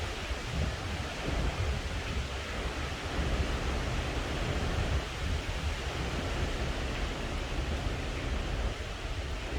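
Typhoon Yagi's strong wind rushing steadily in gusts, with heavy low buffeting of the wind on the microphone.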